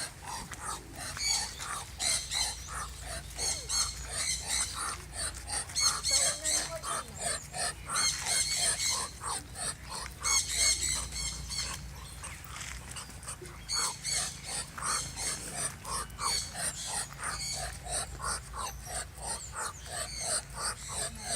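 A duck calling over and over in quick, short notes, with a brief lull about twelve seconds in before the calls pick up again.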